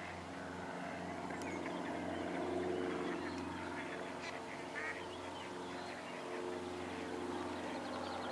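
Ducks calling, a scatter of short calls through the middle, over a steady low hum.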